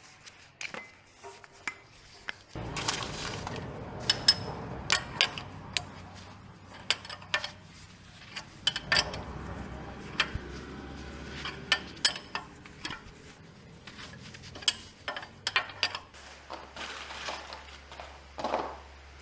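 Irregular metallic clicks and clinks of hand tools and metal parts being handled during work on a vehicle chassis, with a few louder knocks.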